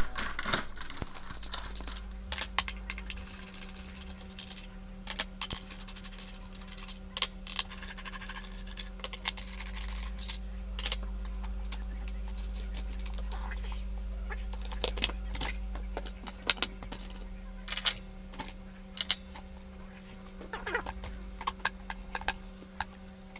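Irregular small metal clicks and clinks of a screwdriver and loose screws as the screws holding a car amplifier's cover are taken out, over a steady low hum.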